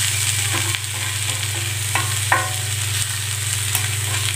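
Onion dosa frying on a hot iron tawa just after being flipped: a steady sizzling hiss. About two seconds in there are two short taps of the spatula, and a steady low hum runs underneath.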